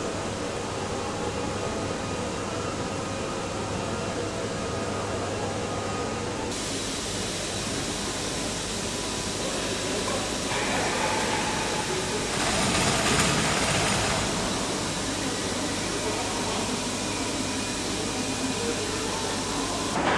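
Aircraft assembly hall ambience: a steady mix of machinery hum and broad background noise, with faint voices. It changes abruptly a couple of times as the scene cuts, and for about a second and a half past the middle a louder hiss rises over it.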